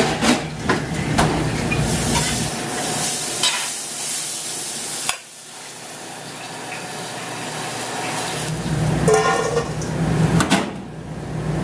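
Beef burger patty sizzling on a flat-top griddle under a metal melting dome, with a few sharp knocks in the first second or so as the dome is handled. The sizzle cuts off suddenly about five seconds in, then slowly builds again. A brief pitched tone sounds about nine seconds in.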